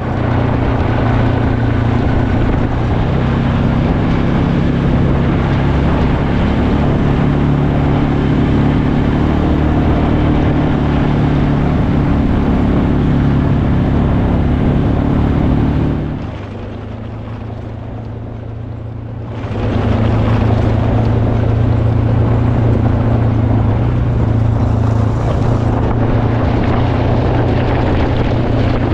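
A motor engine running steadily, easing off for about three seconds around two-thirds of the way through, then picking up again.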